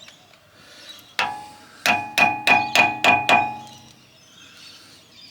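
Hammer striking a metal part: one ringing blow, then a quick run of six more, about three a second, each with a clanging ring.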